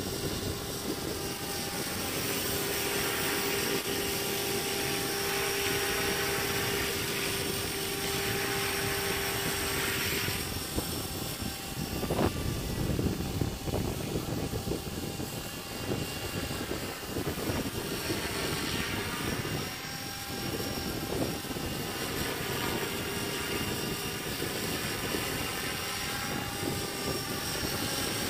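Radio-controlled scale helicopter flying overhead: a steady whine of the motor and rotor whir, swelling, fading and shifting in tone as it moves about the sky. A short knock comes partway through.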